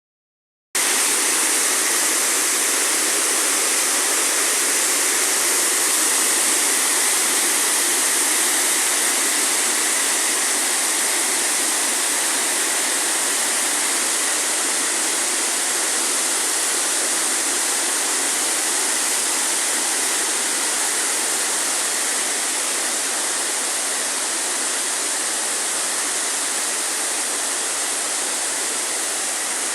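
Waterfall: falling water rushing and splashing in a steady, even hiss-like roar with little deep rumble, cutting in suddenly just under a second in.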